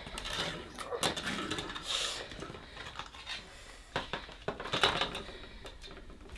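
Several sharp light clicks and knocks, scattered irregularly, over soft rustling movement.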